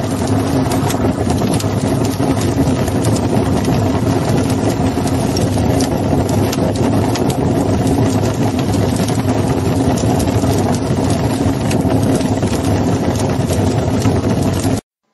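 Loud, steady roar of flames with fine crackling throughout, cutting off abruptly near the end.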